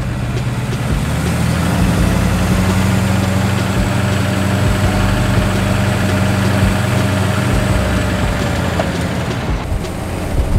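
Duramax turbodiesel engine in a Humvee running steadily as it pulls out at low speed, heard from inside the cab as a low drone with a faint high whine over it.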